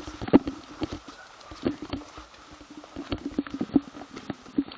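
Footsteps on the ground, a quick, irregular run of steps.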